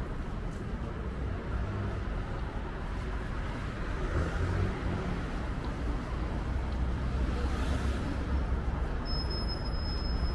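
Street traffic: a steady rumble of passing cars and buses, with a short high-pitched squeal near the end.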